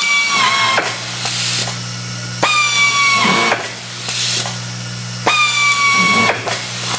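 Electric screwdriver of an automatic screwfeeder driving hinge screws: three whines of about a second each, a couple of seconds apart, each falling off at the end as the screw seats. A steady low hum runs underneath.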